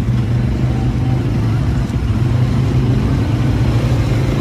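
ATV (quad bike) engines running with a steady low hum as the machines ride along.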